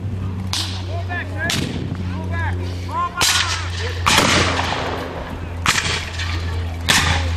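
Scattered black-powder musket shots from reenactors, about six at irregular intervals, each trailing off in an echo. The two loudest come about three and four seconds in.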